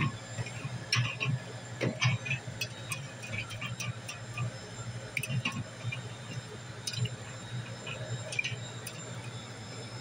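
Aluminium drink cans being slid and set down on a wire cooler shelf: scattered light clicks and taps, a few louder knocks near the start and about two seconds in, over a steady low hum.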